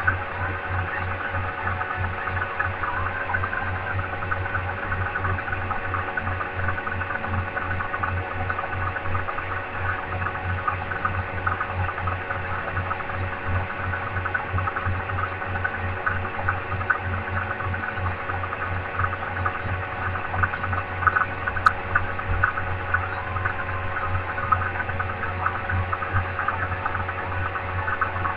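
A steady low mechanical hum with a fast, even pulse in it, with a light crackle above it.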